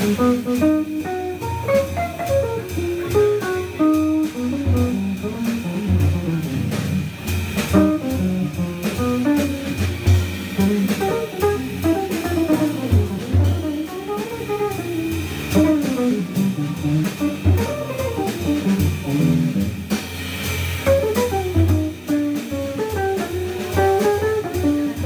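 Jazz organ trio playing a standard live: a hollow-body electric guitar plays single-note melodic lines over electric organ and drum kit with cymbals. The low end keeps a steady walking pulse under the winding guitar line.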